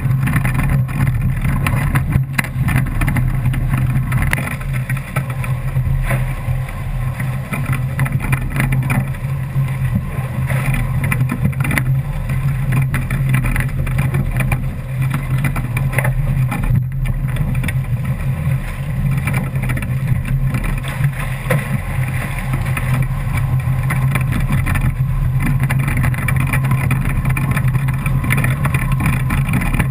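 Continuous rush of water and wind past an A-Class catamaran's hull as it sails fast, heard close to the water, with a couple of brief knocks from the hull.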